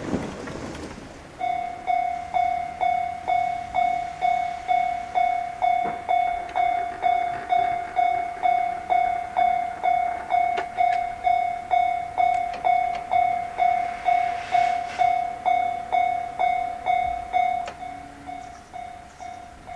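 Japanese railway level crossing's newly installed electronic warning bell ringing about twice a second, each ding a single clear tone with a sharp strike and a short fade. It starts about a second and a half in and turns quieter near the end.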